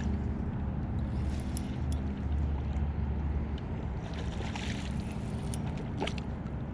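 Steady low hum and rumble on a fishing boat, with a few faint clicks.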